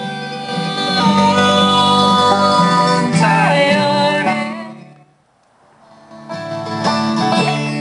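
Music with guitar and singing from a Harley-Davidson motorcycle's Harman Kardon radio. It fades out about five seconds in and comes back a second or so later.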